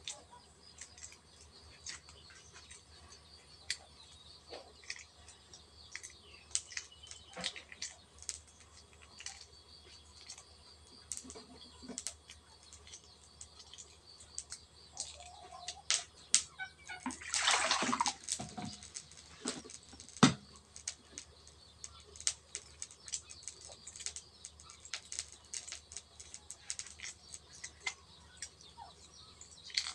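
Hard-boiled duck eggs being peeled by hand: eggshell cracking and flaking off in quick, irregular small clicks, with a louder, longer crackle a little past the middle.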